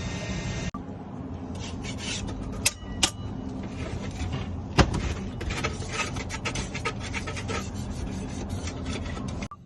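A steady low rumble stops abruptly about a second in. Then a hand tool scrapes and rubs on mortar in short repeated strokes, with a few sharp knocks, the loudest about halfway through.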